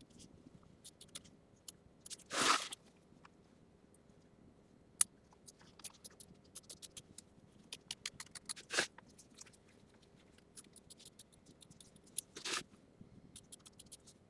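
Small scissors snipping through appliqué fabric in many short, quiet cuts, trimming the excess close to the tack-down stitching, with three louder rustles of the fabric being handled.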